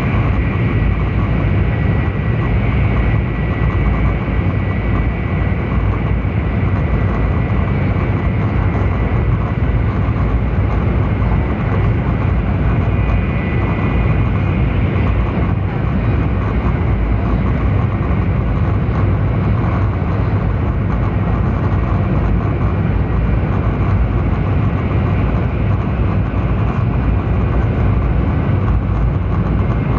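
Steady cabin noise inside a Taiwan High Speed Rail 700T train running at speed between stations: a constant low rumble and rush of wheels, rails and air. A faint high-pitched whine rides on top.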